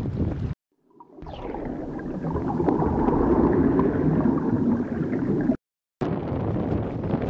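Wind buffeting the microphone, cut off abruptly. After a short silence comes the channel's logo sound effect: a falling whistle, then a churning, watery-sounding swell that builds and holds before stopping dead. Wind on the microphone returns near the end.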